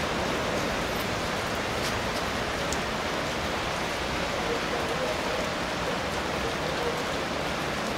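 Steady rain from a thunderstorm falling in an even hiss, with a few faint ticks of individual drops.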